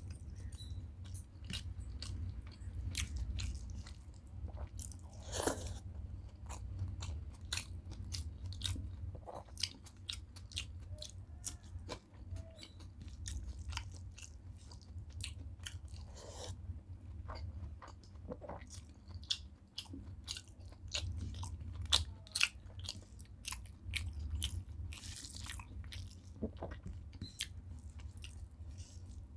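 A person chewing mouthfuls of hand-eaten rice, dal and vegetables close to the microphone, with many irregular wet smacks and clicks of the mouth. A steady low hum runs underneath.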